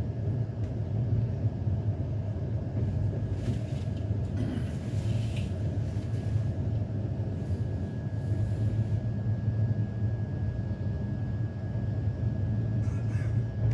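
Passenger train running through a station without stopping, heard from inside the coach: a steady low rumble of the wheels and running gear, with a faint steady high-pitched whine over it.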